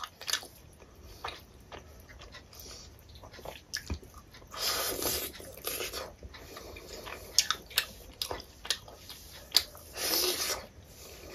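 Close-miked eating by hand: chewing and wet mouth clicks from a mouthful of rice and fish curry. Two longer, louder sucking sounds come about five seconds in and again near the end, as the piece of fish is sucked at the mouth.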